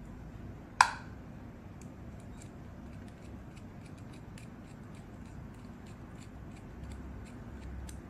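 Small screws being fitted into a metal HU66 lock decoder tool: one sharp click about a second in, then faint, irregular ticks of metal parts and screwdriver.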